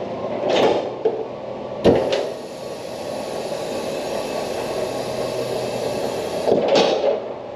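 Workshop vehicle lift being lowered a little: a clunk about two seconds in, then a steady mechanical run with a high hiss for about four and a half seconds before it stops.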